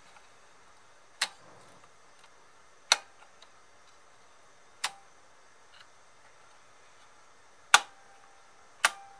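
Five sharp, irregularly spaced clicks from the small plastic and metal parts of an opened Bose CD changer's loading mechanism being handled. The last two are the loudest.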